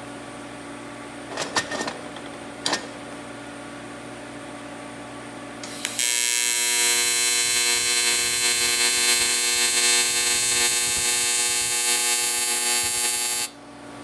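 AC TIG welding arc on aluminium: a loud, steady buzz that switches on about six seconds in, holds evenly for about seven seconds, and cuts off suddenly near the end. A few light clicks come before the arc starts.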